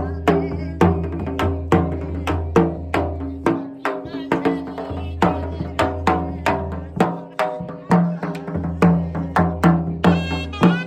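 Music with a steady beat of struck, ringing notes over a low bass line; a reedy wind melody comes in near the end.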